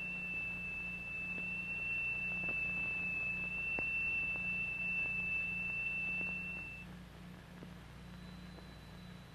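A steady, high, pure tone: the note driving a crystal-excited triangular steel plate so that its sand forms a sonorous (Chladni) figure. It cuts off about seven seconds in, and a fainter, higher tone begins near the end.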